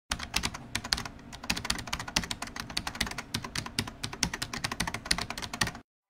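Computer keyboard typing: a rapid, irregular run of key clicks that stops just before the end.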